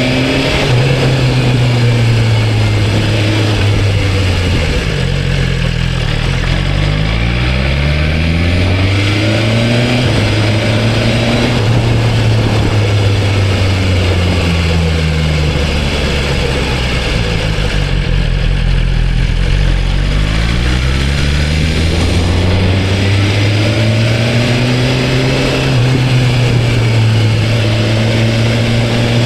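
BMW S1000RR inline-four sport bike on its stock exhaust, ridden on the road. The engine note rises and falls several times as the rider speeds up and rolls off, holding steady in between, over a steady rush of noise.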